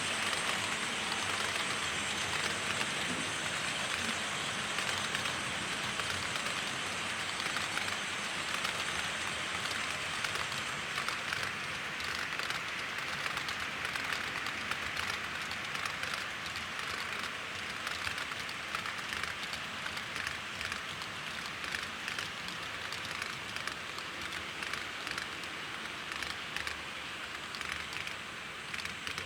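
HO-scale model diesel locomotive and train running along layout track: a steady whirring hiss from the motor, gears and wheels, with many small clicks, slowly fading.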